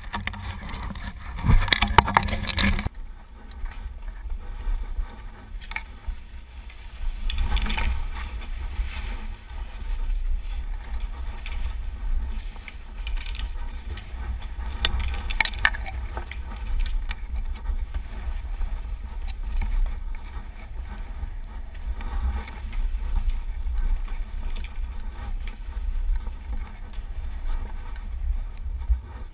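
Skis sliding and scraping over a thin layer of snow on a street, with a steady low rumble of wind on the camera microphone. A louder clatter comes about two seconds in.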